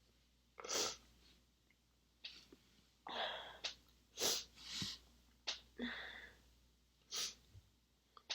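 A woman's stifled sneezes: a run of about half a dozen short, held-in bursts, some in quick pairs, with quiet gaps between them.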